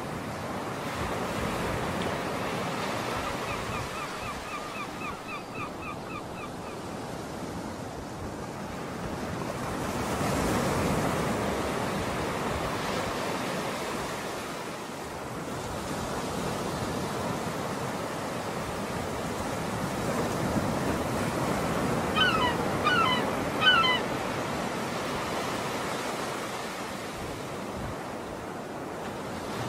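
Small waves washing onto the beach, swelling and easing, with some wind. Bird calls come over it: a rapid chattering run a few seconds in, then several sharp chirps about three-quarters of the way through.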